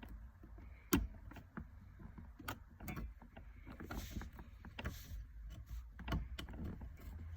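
Scattered small clicks and knocks of a locking pin being worked into an automatic shifter assembly by hand, the sharpest click about a second in, over a low rumble.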